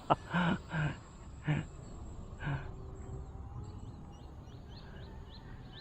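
Geese honking several times in short calls, followed by a run of quick, evenly spaced high chirps.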